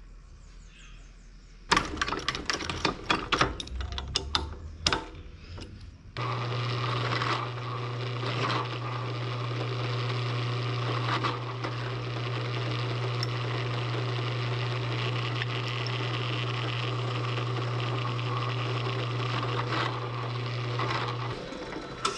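Light metal clicks and rattles for a few seconds, then a bench drill press motor running steadily for about fifteen seconds and stopping shortly before the end.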